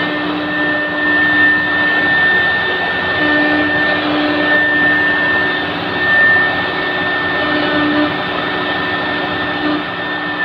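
CNC router spindle running at speed while its bit engraves a wooden door panel: a steady high whine over the even noise of the bit cutting the wood.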